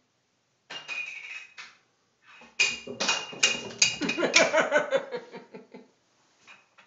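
Plastic juice bottle lid batted by a cat across a wooden floor: a brief skidding clatter, then a run of quick clicks that come faster and fainter as the lid bounces and spins to a stop.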